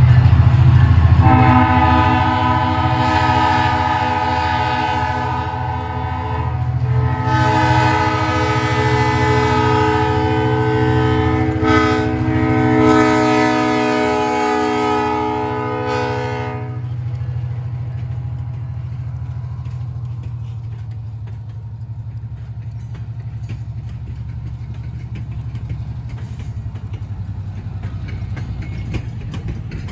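Diesel locomotive's multi-tone air horn sounding the grade-crossing signal, two long blasts, a short one and a long one, over the steady rumble of the locomotive's diesel engine. After the horn stops about halfway through, the engine rumble and the passenger cars rolling past continue.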